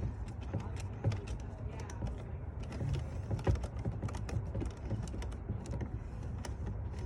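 Irregular light clicks and taps of hand tools and parts being handled while working on the engine, over a low steady hum.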